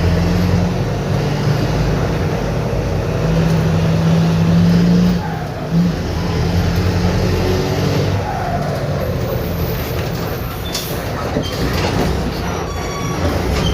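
Mercedes-Benz OF-1721 BlueTec 5 bus's diesel engine running on the move, its exhaust blowing through a hole, giving a raw, loud exhaust note. The note holds fairly steady and dips briefly about five seconds in.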